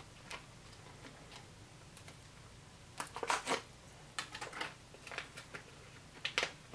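Light, scattered rustles and soft clicks of an MRE cracker packet's cardboard sleeve being handled as the crackers are worked out, coming in small clusters about halfway through and again near the end.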